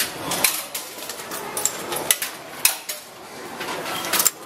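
100-yen coins dropped one at a time into a coin locker's slot to pay the fee, each landing with a sharp metallic clink, about five in all.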